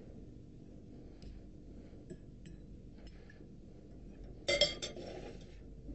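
Metal serving utensils tapping against a china bowl and plate as salad is served: a few light clicks, then a brief louder clatter of metal on the plate about four and a half seconds in, over a faint low hum.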